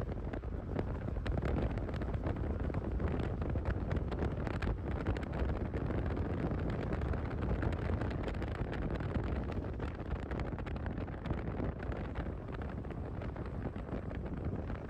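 Wind rushing over the microphone of a moving motorcycle, with engine and road noise underneath: a steady, dense rumble.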